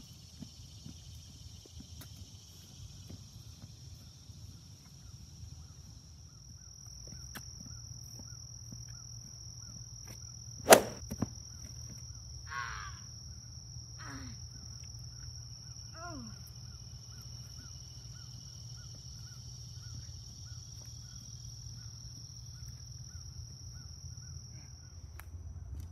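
A steady high-pitched insect drone, broken by a single sharp knock partway through, followed by a crow cawing three times, each caw falling in pitch.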